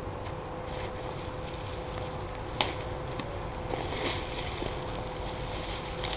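Dry, dead tomato vines rustling and snapping as they are pulled up by hand, with one sharp snap about two and a half seconds in and a few lighter cracks around four seconds. Under it runs a steady low rumble.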